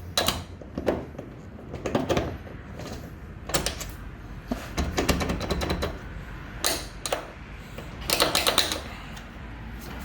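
Irregular metallic clicks and short rattling bursts of hand tools and latch hardware as a steel hood latch is fitted and fastened, with a denser run of clicks near the end.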